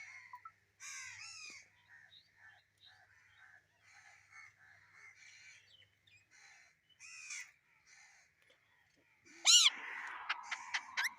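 Parrot calling: a string of faint, short squawks, then a loud call about nine and a half seconds in followed by a quick run of short, sharp calls near the end.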